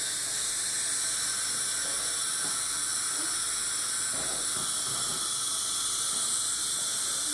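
Dental equipment hissing steadily at a high pitch, with no breaks.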